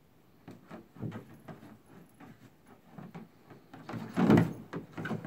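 An animal's feet knocking and scraping on a hollow plastic toy, a string of light knocks with a louder rattling clatter about four seconds in.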